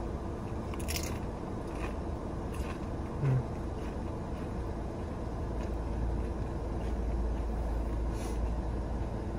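A person biting and chewing a tortilla chip, with a few soft crunches in the first few seconds and another near the end, over a steady low rumble in the car cabin.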